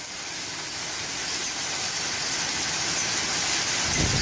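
Torrential rain pouring down in a storm, a steady hiss that keeps growing louder; near the end a low rumble joins it.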